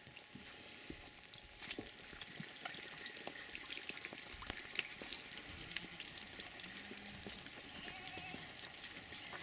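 Footsteps and scattered light knocks from walking through a goat pen, with a few faint goat bleats in the second half.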